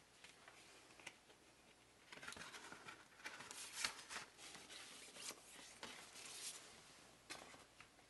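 Faint rustling and scraping of a cardboard LP record jacket being handled, with a few light taps near the end as it is stood back up on the tabletop.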